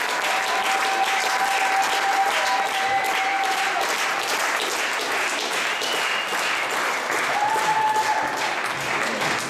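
Audience applauding steadily, with a few drawn-out cheers over the clapping.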